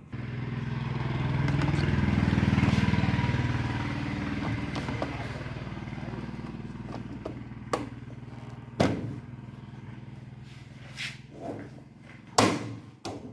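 A low, engine-like drone that starts suddenly, swells for a couple of seconds and slowly fades, followed by a few sharp knocks and clatter.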